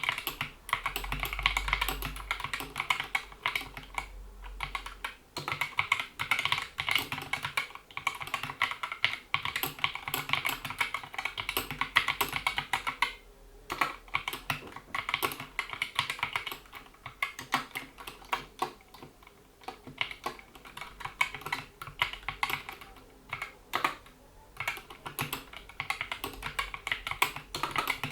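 Steady typing on a GK61 mechanical keyboard with Gateron optical switches, PBT keycaps and rubber O-ring dampeners: a dense run of keystroke clacks, broken by a short pause about 13 seconds in.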